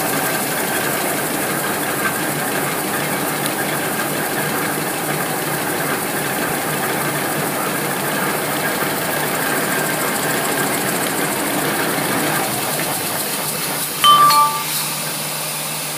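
Two-line automatic N/Z-fold hand towel paper machine running steadily, its rollers and folding gear making a dense, even mechanical noise. About two seconds before the end a short, loud burst with a brief tone cuts through.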